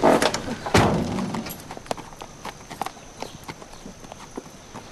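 Hooves clip-clopping at a walk on hard ground, a run of short irregular knocks. Two louder bursts come in the first second, the loudest about a second in.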